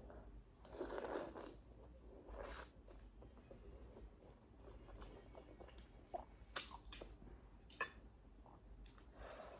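Close-up mukbang eating sounds: a loud bite and crunch about a second in, another shorter one around two and a half seconds, then quieter chewing with a few sharp clicks and a last bite near the end.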